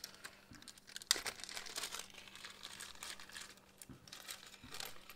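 Small plastic hardware bag crinkling in gloved hands as it is opened and rummaged through, in irregular crackles with the sharpest one about a second in.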